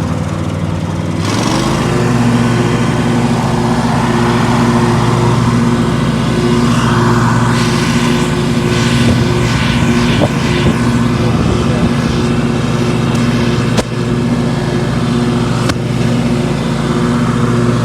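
An engine running at a steady speed, its pitch shifting and then holding steady about a second in.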